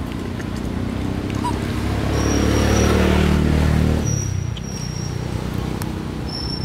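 An engine passes by, growing louder to its peak about three seconds in and fading away over the next second or so. A few short, high chirps sound over the background.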